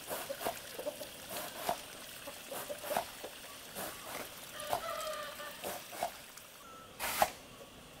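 Farmyard poultry clucking in short calls among scattered clicks and knocks; a sharp knock about seven seconds in is the loudest sound.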